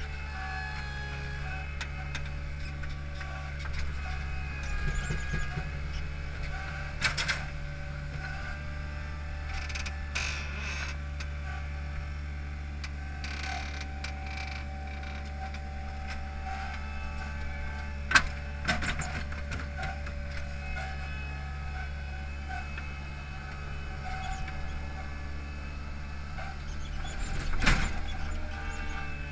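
Hydromak paving machine's engine running steadily with a hydraulic whine as its arm moves the Probst clamp, broken by a few short knocks, the sharpest about two-thirds of the way in, as the clamped H-profile concrete pavers are set down.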